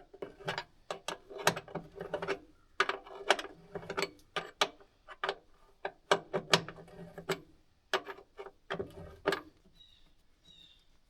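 Ratchet wrench clicking in quick, uneven runs as the bolts holding a hydraulic pump to a combine frame are tightened. The clicking stops about nine seconds in.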